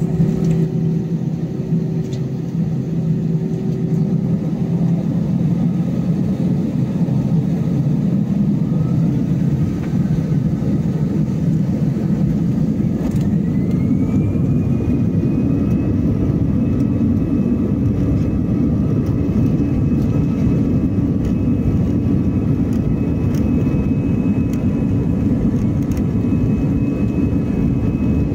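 Airbus A320's jet engines heard from inside the cabin, spooling up to takeoff thrust for the takeoff roll: a whine climbs in pitch over a few seconds about halfway through and then holds steady over a constant rumble.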